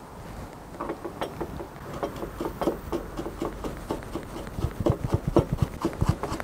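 A chef's knife chopping ginger on a plastic cutting board: a run of knocks that are sparse at first, then come faster and louder in the second half as the ginger is minced fine.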